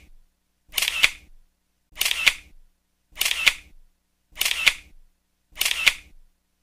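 Camera shutter sound effect played five times in a regular rhythm, about once every 1.2 seconds, with dead silence between the clicks.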